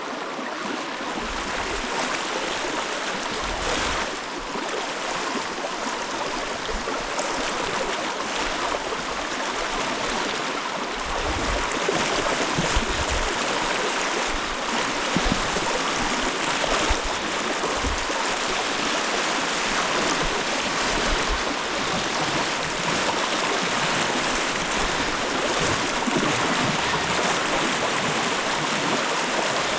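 River water rushing steadily around someone wading across a fast-flowing river, with low thumps now and then.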